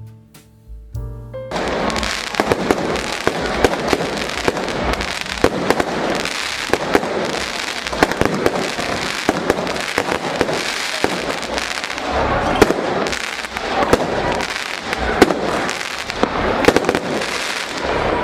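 Piano music stops about a second and a half in. A dense fireworks barrage follows, many sharp bangs over constant crackling.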